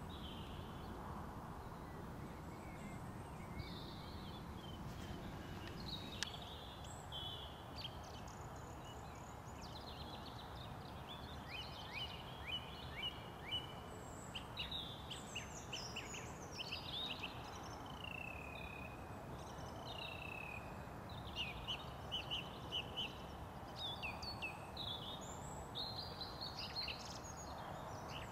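Several songbirds singing and calling, with quick trilled phrases and short whistled notes, over a steady low rumble of background noise.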